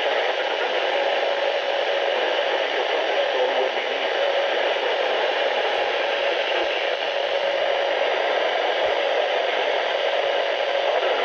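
Weather radio receiver on a weak signal, giving a steady hiss of static.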